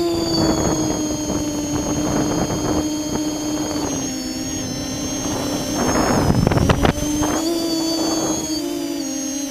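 Multirotor drone's electric motors and propellers whining steadily in several pitches that shift slightly as the throttle changes, with gusts of wind rushing over the onboard microphone, strongest about six to seven seconds in.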